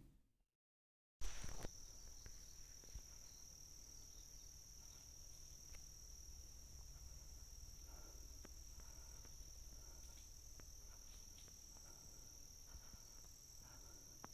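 Steady high-pitched drone of forest insects, starting after a brief gap of silence about a second in, with a few faint ticks.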